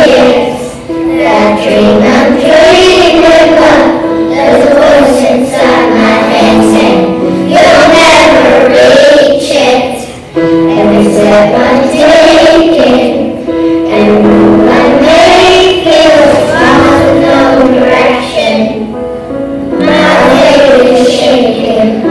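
A group of young schoolchildren singing a song together in unison, phrase after phrase with short breaths between lines.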